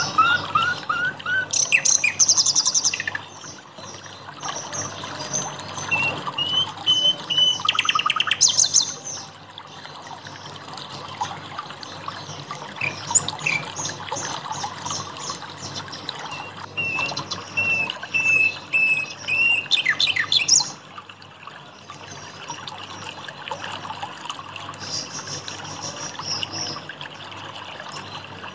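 Songbirds singing and chirping over a steady trickle of water: fast high trills, a rising series of whistled notes and runs of repeated whistles, with the birdsong thinning out in the last third.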